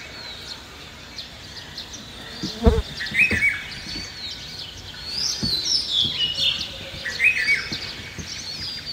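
Songbirds chirping and calling, with one short call phrase heard twice and a dull knock about three seconds in.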